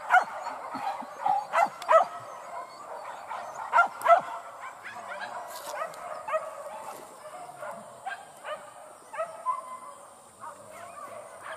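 Several boar-hunting dogs yelping and barking in many short, overlapping high calls, loudest in the first four seconds.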